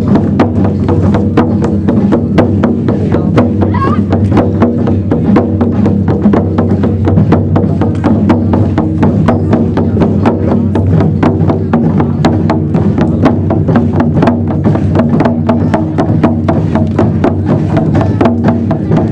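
Music of fast, steady drumming, about four beats a second, over a sustained low drone.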